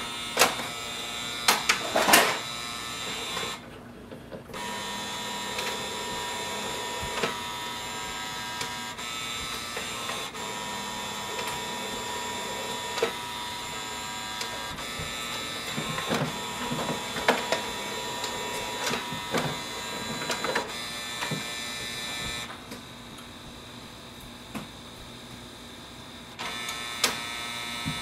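HP OfficeJet Pro 9125e's automatic document feeder pulling pages through and scanning them: a steady motor whir with high tones and repeated sharp clicks as the sheets feed, the loudest clicks near the start. It stops briefly about four seconds in, goes quieter for a few seconds near the end, then starts up again.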